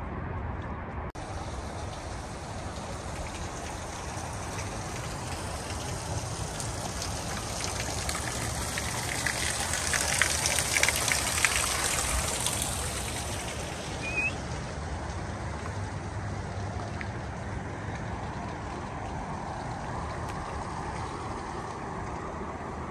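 Steady rush of a river running high, a constant wash of water noise that swells somewhat louder around ten seconds in.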